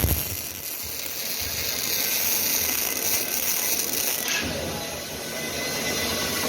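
Machinery running: a steady mechanical noise with a hiss, changing about four seconds in.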